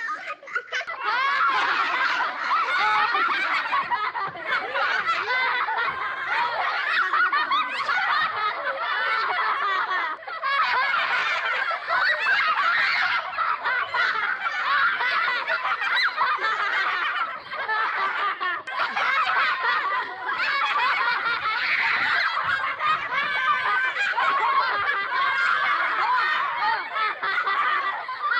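A small group of children laughing together, many high voices giggling and cackling over one another with brief lulls.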